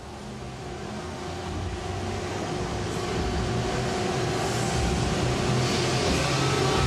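Theme-park ride vehicle moving through a dark corridor: a steady mechanical hum and rushing noise with a few held tones, growing gradually louder.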